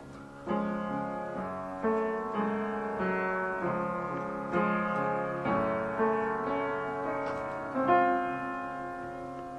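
Instrumental music closing out a song, with no singing: about ten chords struck one after another, each dying away, ending on a louder chord near the end that rings out and fades.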